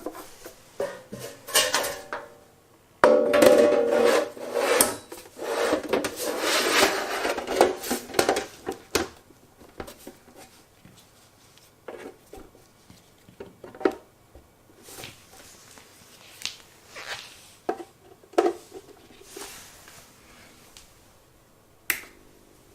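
Parts and tools being handled: irregular clatter, knocks and rubbing, densest in a long stretch from about three to nine seconds in, then scattered single clicks and taps.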